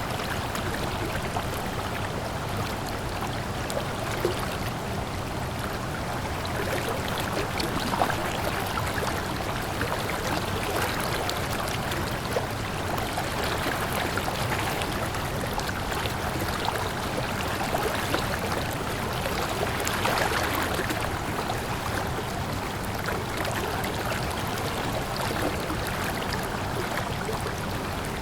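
Water flowing steadily, with small splashes and trickles throughout.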